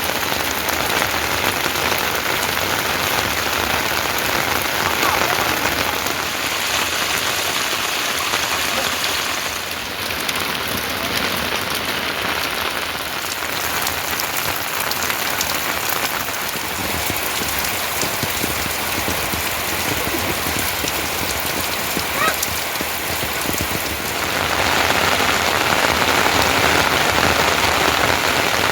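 Steady rain falling, with many small drops pattering on surfaces; it grows louder near the end.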